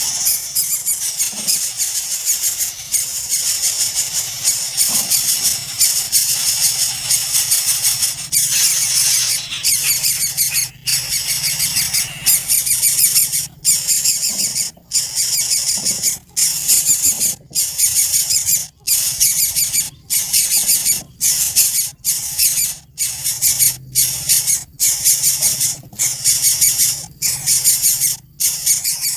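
A brood of nestling birds begging for food: a loud chorus of shrill, high-pitched calls. From about a third of the way in, it breaks off for a moment roughly every second and a quarter.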